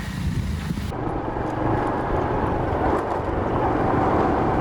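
Small motorcycle riding along: engine running under steady wind rush on the microphone. The sound changes abruptly about a second in.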